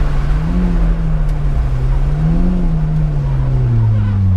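Opel Corsa C GSi rally car's 1.8-litre four-cylinder engine under load, its revs rising and falling twice, then dropping to a lower pitch near the end.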